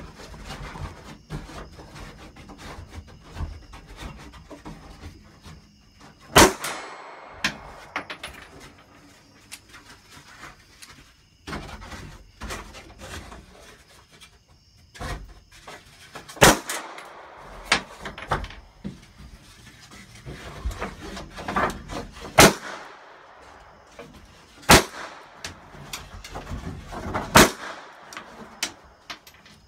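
Gunshots at a shooting range: single shots at irregular intervals of a few seconds. About five are loud, the first about six seconds in, and several quieter reports fall between them.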